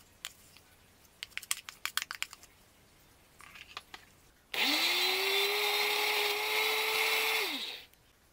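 A few clicks and knocks, then a countertop electric blender starts with a quickly rising whine, runs steadily for about three seconds and winds down. It is re-blending frozen strawberry Oreo ice cream to make it smoother.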